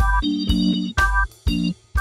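Background music: short keyboard chords in a choppy stop-start rhythm, about two a second, over deep bass hits.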